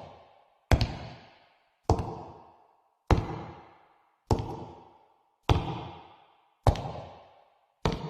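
Slow, heavy knocking: single hard knocks spaced evenly about 1.2 seconds apart, seven in all, each ringing out with an echoing tail before the next.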